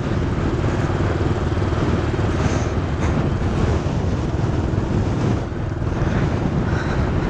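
A dirt bike engine running steadily while being ridden, with wind rushing over the microphone.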